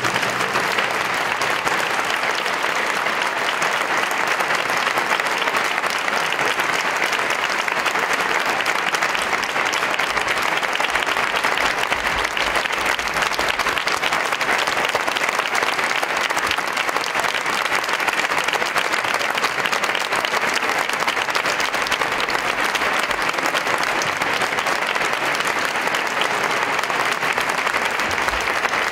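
Audience applauding: dense, steady clapping at an even level.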